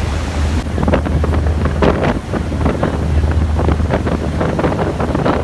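Wind buffeting the microphone on a moving ferry, over a steady low rumble, with irregular splashes as the boat rides through large waves.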